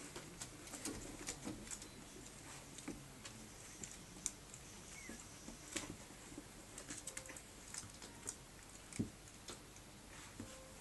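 Faint, irregular light clicks and soft rustles of Staffordshire bull terrier puppies shifting and nuzzling against each other on carpet.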